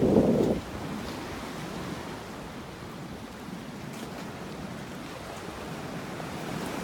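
Sea waves washing in at high tide, a steady even wash of surf. A gust of wind rumbles on the microphone at the start and drops away about half a second in.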